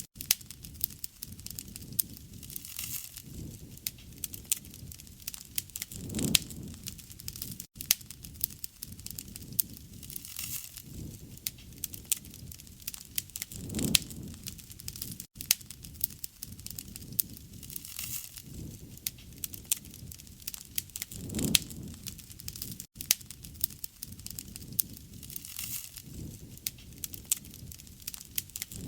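Wood fire crackling, with frequent sharp snaps and pops over a low rumble of flame that swells every few seconds. Very brief dropouts recur about every seven and a half seconds.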